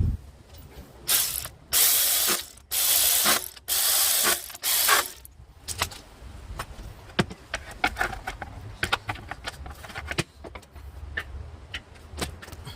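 Socket ratchet wrench clicking in five quick bursts, then scattered metallic clicks and taps of hand tools on engine parts.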